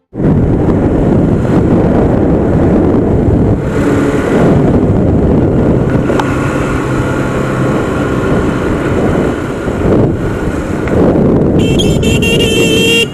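Motorcycle riding on a wet road, heard from a camera on the bike: a steady rush of wind buffeting the microphone over the engine and tyre noise. A brief, shrill, warbling tone sounds for about a second near the end.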